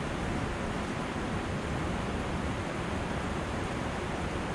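Steady rushing noise of fast, turbulent river water flowing below a lock and dam.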